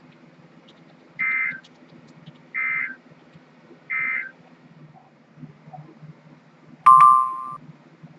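Emergency Alert System end-of-message signal: three short bursts of warbling digital data tones, about a second and a half apart, marking the end of the broadcast alert. About seven seconds in, a sharp click is followed by a brief, loud steady beep.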